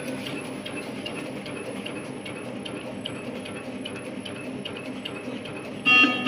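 High-speed film label cutting machine running steadily, a mechanical hum with a light, regular ticking a few times a second as it cuts.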